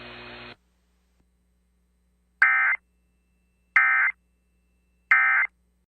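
Three short, identical Emergency Alert System (SAME) digital data bursts, about a second and a half apart: the end-of-message code that closes a NOAA Weather Radio severe thunderstorm warning. A faint hum from the broadcast cuts out about half a second in, before the bursts.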